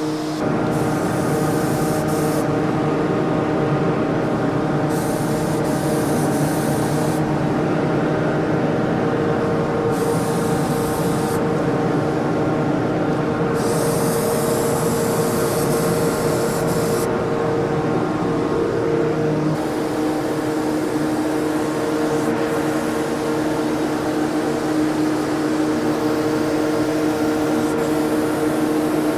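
HVLP turbine sprayer and spray-booth exhaust fan running with a steady hum, while the HVLP spray gun hisses in bursts of one to three seconds as the trigger is pulled, about five times in the first twenty seconds, then more steadily and fainter.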